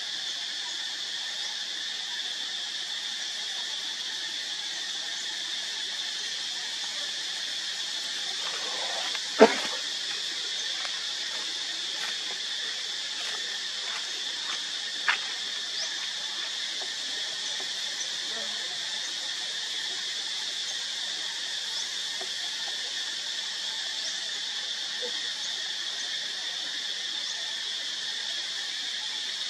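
Steady, high-pitched drone of a forest insect chorus. A brief sharp sound stands out about nine seconds in, and a fainter one about six seconds later.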